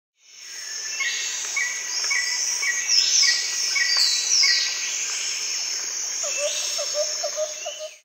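Tropical jungle soundscape: a steady insect drone with a run of short bird chirps and a few falling whistles, then a lower repeated call near the end. It fades in over the first second and cuts off sharply at the end.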